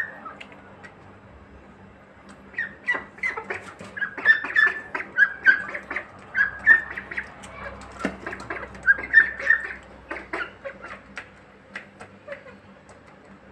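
Young poultry pecking feed from a metal bowl: quick beak clicks and taps against the metal, mixed with short, high peeping calls. It gets busy a couple of seconds in and thins out near the end.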